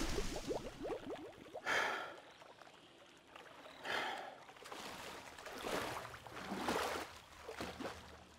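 A man breathing hard and heavily after exertion: four or five loud, rasping breaths a second or two apart.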